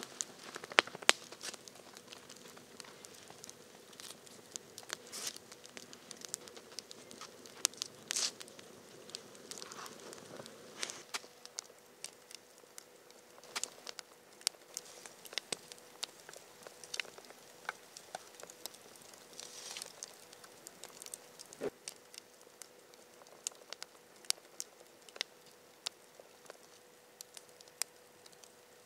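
Wood campfire crackling, with sharp irregular snaps and pops. During the first ten seconds or so there is also rustling and crunching of snow and twigs as skewers are handled and pushed in beside the fire.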